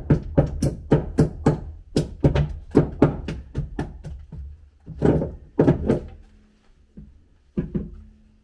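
Rapid knocking of a small metal hand tool against old wooden stair timber, about three sharp blows a second for some six seconds, then a pause and two more knocks near the end.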